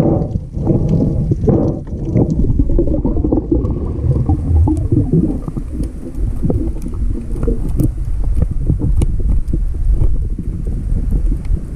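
Muffled underwater rumble of water moving against a waterproof camera housing as the diver swims, with many scattered sharp clicks throughout.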